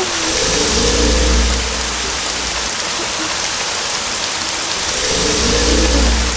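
Steady rain falling, with a deep rumble that swells and fades twice, once about half a second in and again near the end.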